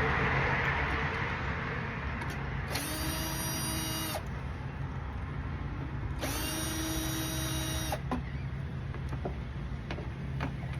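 Power drill run in two short bursts, each spinning up quickly to a steady whine, while taking the fan motor out of a window air conditioner. A steady low hum runs underneath, with a few light clicks between the bursts.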